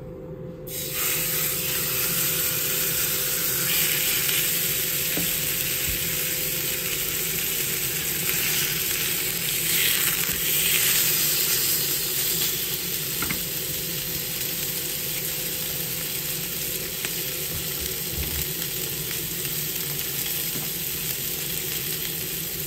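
An oiled sirloin steak sizzling in a hot frying pan. The sizzle starts about a second in as the meat goes into the pan, then holds steady, growing louder for a few seconds around the middle.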